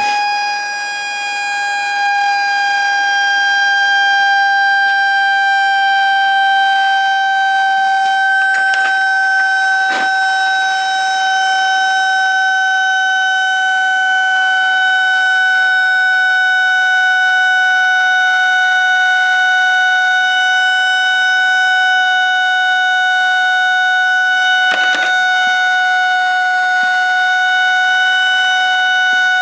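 A speaker driven by an LM317 voltage regulator wired as an audio amplifier, sounding a loud, buzzy, siren-like tone with many overtones that slowly sinks in pitch. The chip is running at 32 volts without its heat sink, and the tone is "crying". A few brief clicks come through it.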